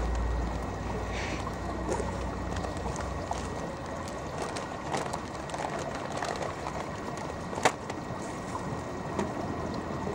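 Steady outdoor background noise with scattered faint clicks, and one sharp click about seven and a half seconds in.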